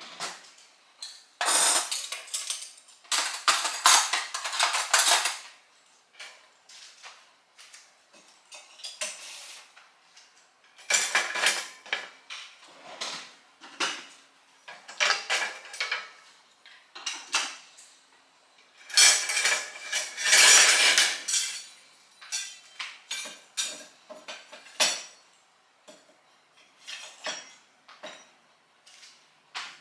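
Kitchenware clattering as dishes, plastic food containers and cutlery are handled and set down on a kitchen counter. It comes in irregular bursts with short pauses, and the longest, loudest run of clatter falls about two-thirds of the way through.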